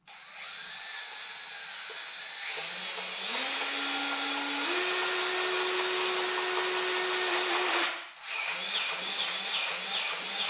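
DeWalt 20-volt cordless grease gun running with the trigger held, pumping grease into a backhoe grease fitting. Its tone steps up twice; about eight seconds in it stops briefly, then runs again with an even pulsing beat of about three strokes a second.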